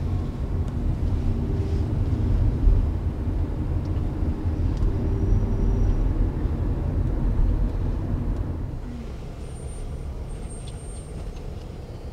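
Car interior noise while driving: a steady low rumble of engine and tyres, easing off and getting quieter from about eight seconds in.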